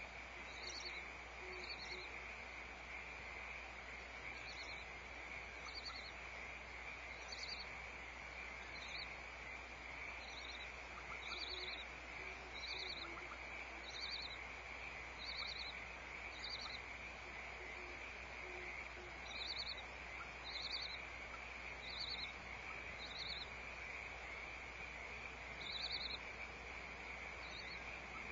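Short, high chirps repeating irregularly about once every second or so, over a steady high-pitched hiss and a low hum.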